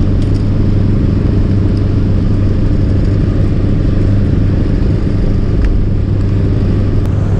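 Fishing boat's engine running steadily under way: a constant low hum with a noisy rush over it.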